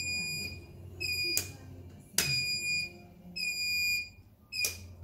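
Electric scooter's turn-signal beeper sounding a steady, high-pitched beep about once a second while the indicators flash, with a few sharp clicks between the beeps.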